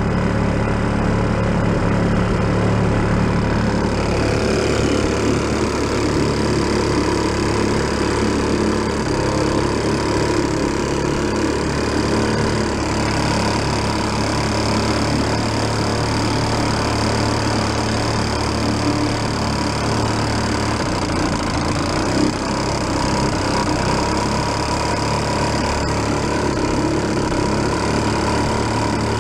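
1937 Sears Waterwitch 2.5 hp two-stroke outboard motor running steadily, pushing the boat along, its pitch dropping a little about two-thirds of the way through.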